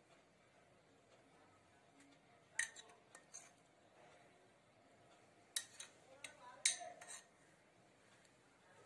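A metal spoon clinking and scraping against a china bowl: a few sharp clinks about two and a half seconds in, then a cluster of them around five and a half to seven seconds, as green chilli paste is spooned into yogurt.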